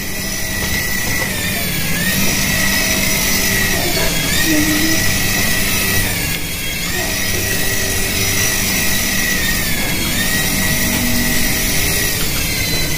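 Small remote-control toy helicopter's electric rotor motors whining in flight, a steady high-pitched whine that briefly dips in pitch and recovers about every two seconds as the throttle is eased.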